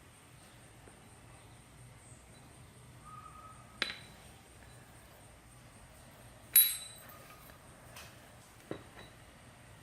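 Metal parts of a Vespa GTS 300 variator clinking as they are fitted together by hand: three sharp clinks, the loudest about two-thirds through with a short ring.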